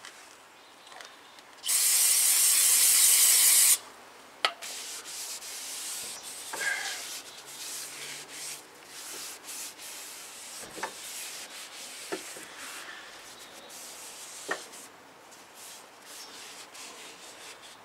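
An aerosol can sprays in one loud hiss for about two seconds, then a rag rubs and wipes over the new brake rotor, with scattered light knocks, cleaning greasy fingerprints off its surface.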